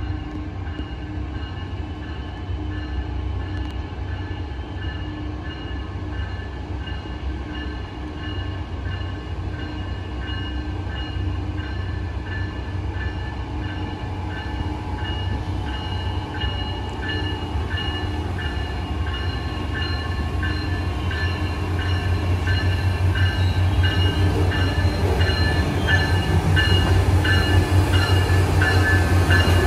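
Train rolling along the rails: a steady low rumble with high steady ringing tones and a regular clicking of wheels over rail joints, growing louder in the last third.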